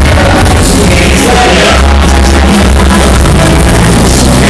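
Loud music with a heavy bass played through a sonidero street sound system, recorded so close and loud that it stays at the top of the recording's range.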